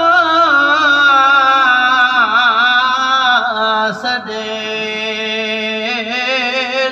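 A man chanting a Muharram mourning verse solo into a microphone in long, held, ornamented notes, his pitch wavering and gliding. He pauses briefly about four seconds in, then carries the line on at a lower pitch.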